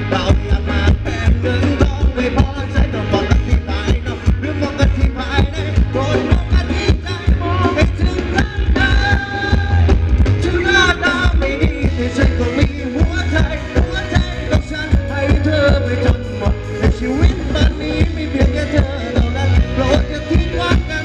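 Live band playing Thai ramwong dance music, with a heavy bass on a steady beat under a melody line.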